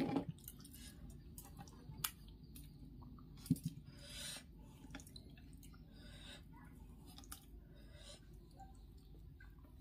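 Fingers working through soft boiled rice and picking at a piece of fried katla fish on a steel plate: scattered soft squishes and light clicks, a few sharper ones near the start and about two and three and a half seconds in.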